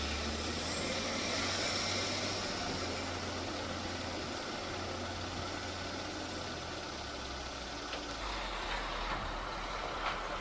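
An engine running steadily with a low hum; the hum drops lower about eight seconds in, and a few faint clicks come near the end.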